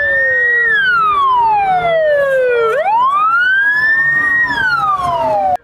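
Fire engine siren wailing: the pitch falls slowly, sweeps back up about halfway through, then falls again before cutting off suddenly.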